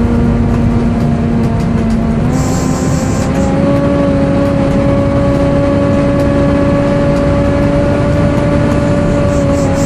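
Volvo B7TL bus's engine-cooling fan whining loudly over the engine, a loud screechy 'hoover' sound: one steady tone that steps up in pitch about two seconds in and again a second or so later, then holds. A short high hiss of air sounds partway through.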